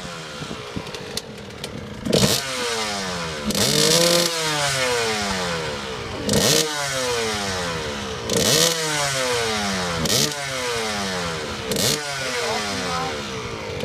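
Suzuki RM125 two-stroke motocross engine idling briefly, then revved hard about six times, roughly every two seconds. Each blip is a sharp rise in revs, and the pitch then falls away.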